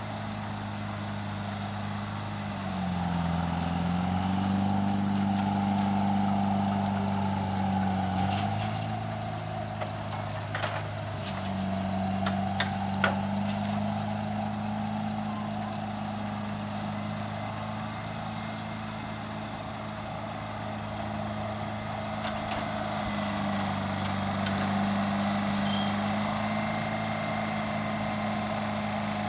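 Dragline's diesel engine running steadily under load, its pitch sagging and recovering several times as the bucket is hoisted and swung. A few sharp clanks come around the middle as the bucket is over the dump truck.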